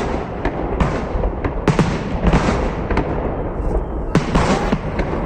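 Fireworks display going off: a dense, irregular run of bangs and crackles, with louder bursts every second or so over a continuous low rumble.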